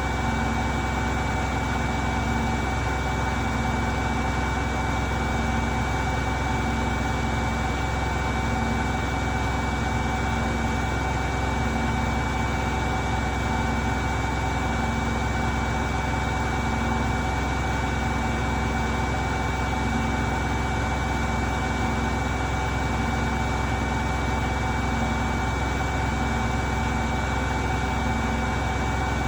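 Beko washing machine in its spin cycle, the drum spinning at a steady speed with a low rumble and a constant high motor whine.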